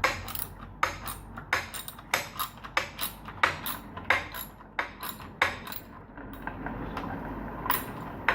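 Repeated sharp metal-on-metal clinks and knocks of hand tools working on a motorbike's metal parts, irregular, about two or three a second, thinning out to one more knock near the end.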